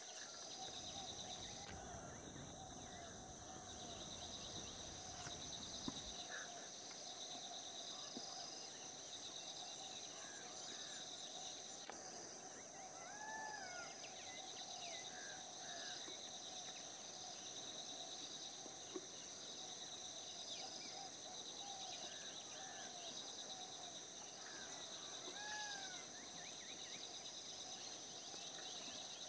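Wild scrub ambience: a steady chorus of insects trilling in high pulsing bands, with scattered short bird chirps. A low rumble underneath stops abruptly about six seconds in.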